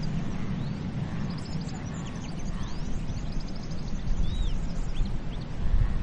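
Sea waves washing on a beach, a steady noisy wash with a low rumble, while small birds chirp and twitter in quick, short high calls through the middle.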